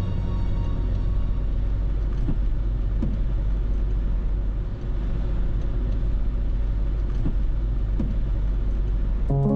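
Car driving on a wet road: a steady low rumble of engine and tyres, with a few faint ticks.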